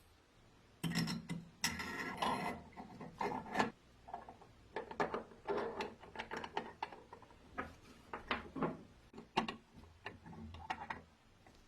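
A restored vintage hand-crank coffee grinder being worked, its mechanism giving irregular clicks, rasps and grating bursts that start about a second in.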